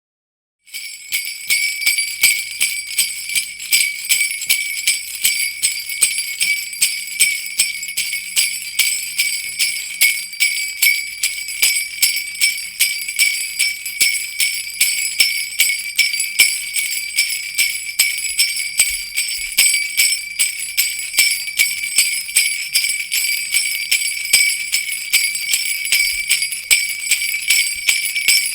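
Sleigh bells shaker shaken in a steady rhythm, a bright continuous jingling with an accented shake about twice a second. It starts just under a second in.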